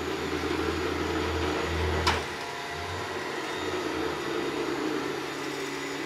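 ES300 robot vacuum cleaner running, a steady whir from its suction motor and brushes. A single click comes about two seconds in, and a low hum under the whir drops away just after it.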